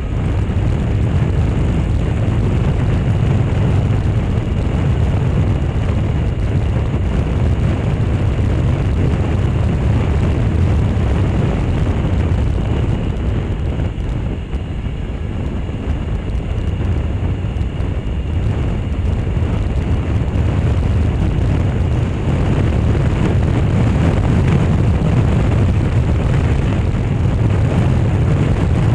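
Wind buffeting the microphone of a handlebar-mounted camera on a moving motorcycle, over the steady running of its engine and tyres on the road. The noise is a dense low rumble that grows a little louder about two thirds of the way through.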